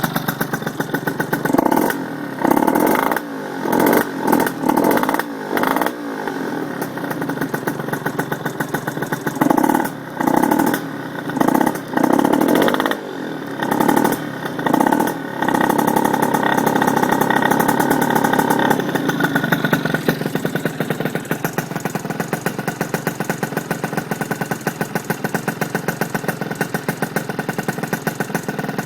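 80cc motorcycle engine with an exhaust leak, revved in a series of short throttle blips, then held at higher revs for a few seconds before dropping back to a steady idle.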